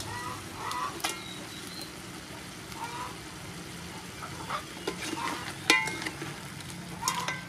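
A pot of curry bubbling and sizzling over the heat, with whole river prawns just added, and a few sharp clicks and knocks against the pot.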